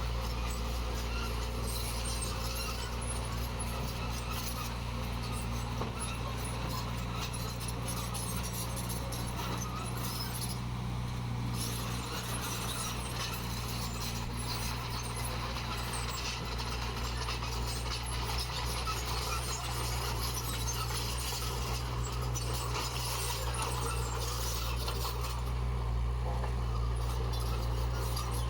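Heavy diesel earthmoving machinery running steadily with a low, even engine hum, under a constant scraping, clinking noise of gravel being pushed.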